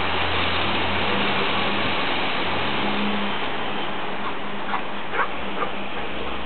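A dog whimpering in a few short, high squeaks starting a little past halfway through, over a steady hiss and low hum.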